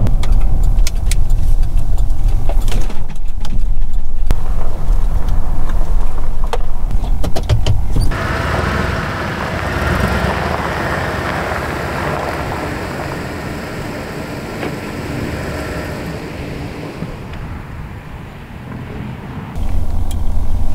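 Road and engine noise inside the cabin of a 2014 Chevy Suburban driving on a highway: a loud, steady low rumble with scattered light clicks. About eight seconds in, it gives way to a quieter, even hiss for roughly eleven seconds. The low rumble returns just before the end.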